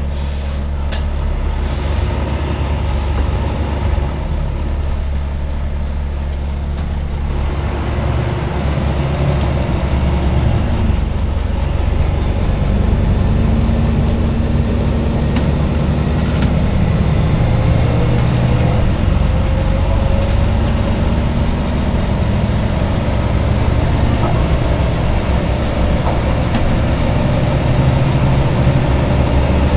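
Volvo B9TL double-decker bus running, with a steady low humming noise. The engine note changes about seven seconds in, and a faint whine glides in pitch around the middle.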